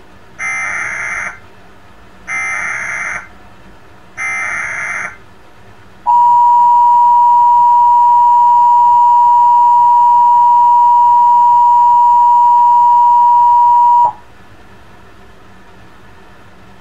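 Emergency Alert System Required Monthly Test: three short bursts of SAME header data tones, each about a second long and a second apart, then the two-tone EAS attention signal (853 and 960 Hz together) held steady and loud for about eight seconds before cutting off.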